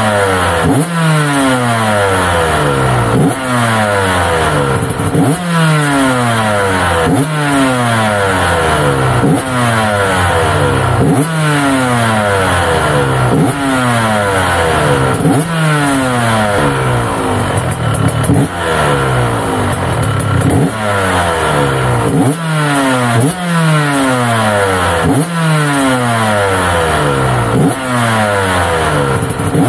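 2022 KTM 125 SX's 125 cc single-cylinder two-stroke engine revved in repeated throttle blips, about one every two seconds, each rev jumping up sharply and falling back toward idle, as it warms up after a cold start.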